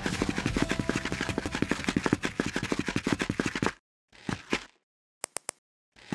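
A fast run of sharp plastic clicks and clatter, about ten a second, from Lego pieces snapping together, which stops abruptly partway through. After a brief pause comes a short clatter, then three quick clicks near the end.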